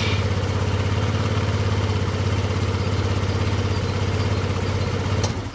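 SYM Jet14 200 scooter's single-cylinder four-stroke engine idling steadily just after starting, on a freshly fitted spark plug; it is switched off about five seconds in.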